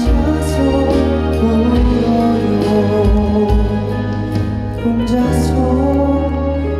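Live performance of a slow pop ballad: sustained keyboard chords and bass with soft cymbal strokes about once a second, and a sung melody. The bass drops out briefly past the middle and comes back in.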